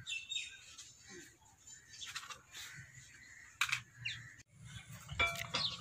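Birds chirping faintly, with a few sharp clicks. A low steady hum comes in about three-quarters of the way through.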